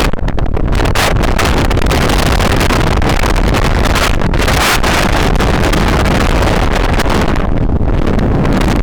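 Strong wind buffeting the microphone: a loud, steady rushing roar, heaviest in the low end.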